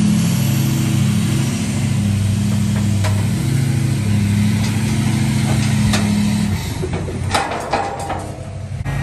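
Pickup truck engine running steadily under load while a shed is dragged by chain onto a trailer. The engine eases off about six and a half seconds in, followed by a few sharp knocks and clanks.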